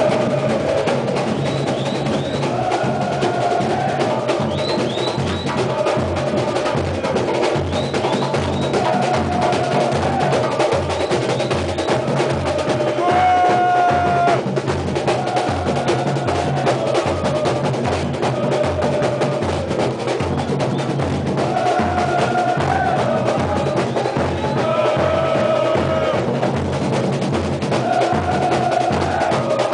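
A football supporters' samba-style bateria drum corps playing a steady beat on bass drums and snare drums, with a crowd of fans singing a chant along with it. A sharp held tone cuts through briefly about halfway.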